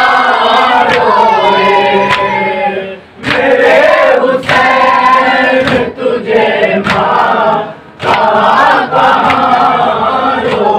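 A group of voices chanting a noha, a Muharram lament, in unison, with sharp beats about once a second and brief breaks between sung phrases.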